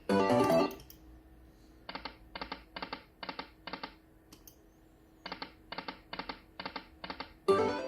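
Dragon's Riches Lightning Cash slot game sounds: a short musical jingle, then two rounds of five evenly spaced short tones, one for each reel stopping, over a faint steady hum, with another jingle starting near the end.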